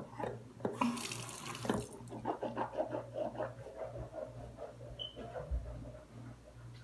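Bathroom sink tap running in a short hiss, then water splashing in the basin in quick irregular splashes as hands rinse.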